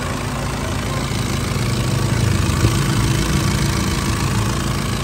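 Nissan Patrol's newly fitted ZD32 diesel engine running steadily, swelling slightly around the middle, with a single sharp click about two and a half seconds in.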